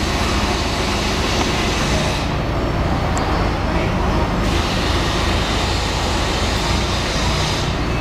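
Backhoe loader's diesel engine running steadily under a broad hiss as the backhoe arm is worked. The higher hiss drops away for about two seconds a couple of seconds in, then returns.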